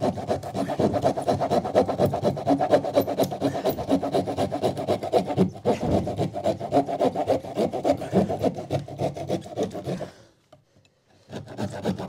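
Pad saw cutting through OSB board behind a plasterboard cut-out, in quick back-and-forth strokes. There is a brief break a little before halfway, and the sawing stops about ten seconds in.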